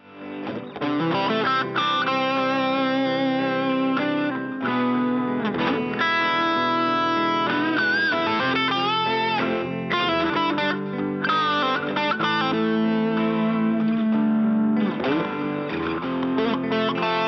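Goldtop Les Paul electric guitar played through an amplifier, with chords and single-note lines that include string bends. Playing starts about half a second in and then continues at an even level.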